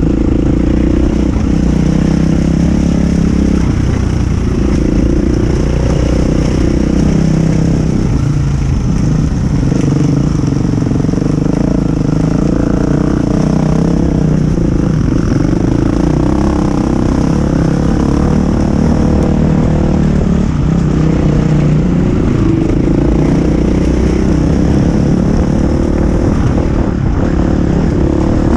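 Husqvarna FE350 enduro motorcycle's single-cylinder four-stroke engine running loud and continuous on a dirt trail ride, its pitch repeatedly rising and falling as the throttle is opened and closed.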